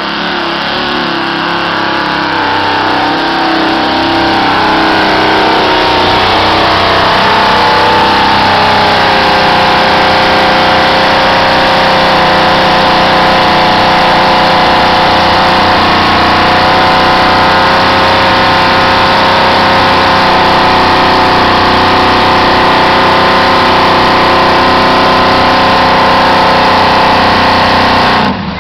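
Mud-bog truck engine revving hard, climbing over the first several seconds and then held at high revs while the truck churns through the mud pit, buried up to its body.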